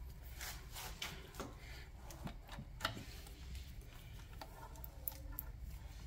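Faint, scattered clicks and light ticks from the throttle linkage of a 1974 Johnson 9.9 hp outboard as its remote throttle cable is worked back and forth by hand, over a low steady hum.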